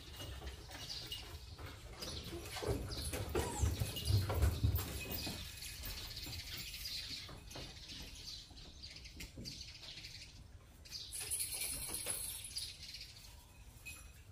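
Small birds chirping in short calls throughout, with a run of low thuds a few seconds in.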